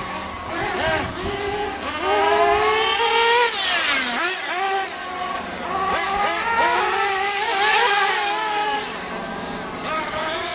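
Several nitro RC on-road cars' small glow-plug engines running hard round the track, their pitches rising and falling as they accelerate and brake. About four seconds in, one engine's pitch drops sharply and then climbs again.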